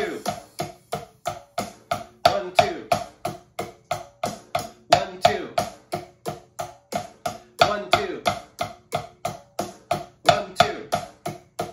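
Wooden drumsticks striking a rubber snare practice pad in a steady run of strokes, about four a second, with a louder accented stroke at the start of each group of eight, over funky backing music.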